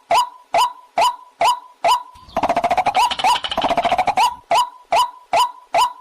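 Waterhen (jal murgi) calling: one sharp call repeated a little over twice a second, with a faster jumble of overlapping calls from about two to four seconds in.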